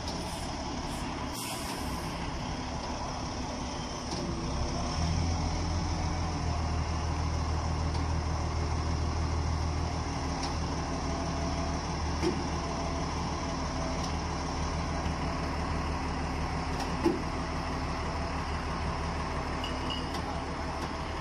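Forklift engine running under load. It revs up about four seconds in and holds the higher speed for several seconds while the mast lifts a heavy machine. Two light knocks come later.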